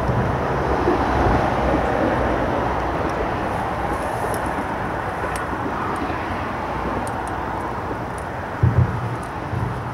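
Steady drone of road traffic crossing a bridge, with two short low thumps a little before the end.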